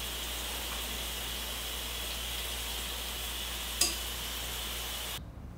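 Steady hiss of room noise with a low hum. A single short clink of a spoon against a glass bowl comes about four seconds in. The hiss cuts off suddenly near the end to a quieter background.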